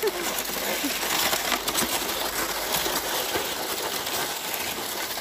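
A plastic sled sliding over packed snow as it is pulled along: a steady scraping hiss with light crunching and a few small squeaks from the snow.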